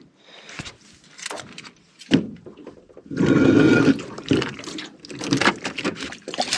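Water splashing and sloshing as a hooked fish is hand-lined up to the side of the boat, with scattered knocks and rustles. The loudest splashing comes about three seconds in.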